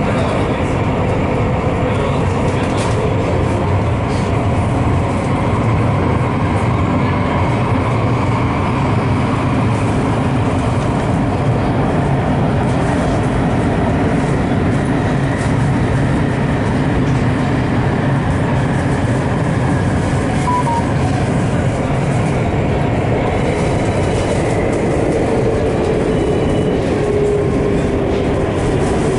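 Steady running noise of a metro train heard from inside the car in a tunnel: the wheels rumbling on the rails with the car's hum. Near the end a motor tone slides down in pitch as the train slows into the station.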